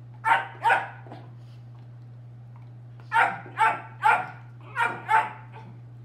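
A dog barking in short sharp barks: two in quick succession, then a pause, then a run of five.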